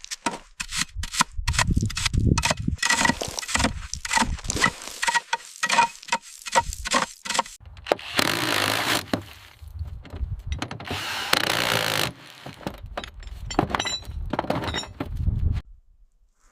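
Workshop tool sounds: a rapid run of metal clanks and knocks, some ringing briefly, with two longer rasping, sawing-like passes of about a second each in the middle.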